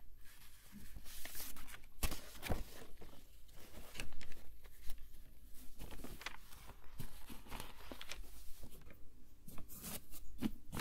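Sheets of lined writing paper rustling and sliding as a written page is moved aside and a blank one is laid down and smoothed by hand, with a few sharper paper crackles.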